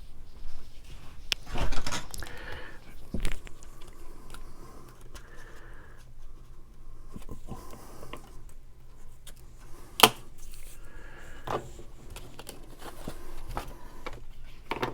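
Handling noise of paper craft work: scattered clicks, knocks and light rustling of paper and tools, with the sharpest knock about ten seconds in.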